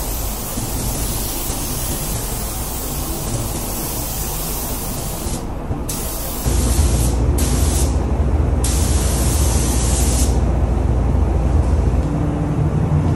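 Compressed-air paint spray gun hissing steadily as it lays paint on a car body. In the second half the hiss breaks off briefly several times. From about halfway a deep steady rumble sits underneath.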